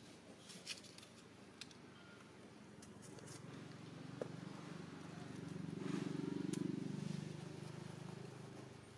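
A low rumble that swells over a few seconds, peaks with a fine pulsing, then fades, with a few faint clicks in the first seconds.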